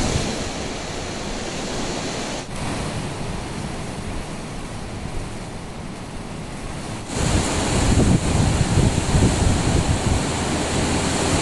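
Wind buffeting the microphone: a steady rushing noise with gusty low rumbles, which jumps louder about seven seconds in.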